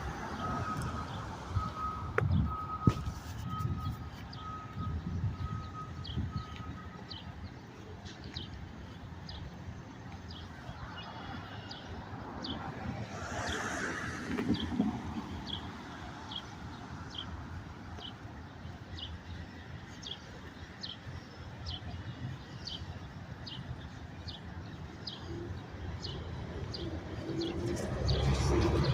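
A bird repeating a short, high chirp over and over, a bit more than once a second, over a low rumble of city traffic.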